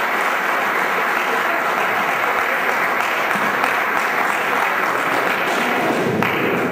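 Audience applauding steadily, the clapping thinning out about six seconds in.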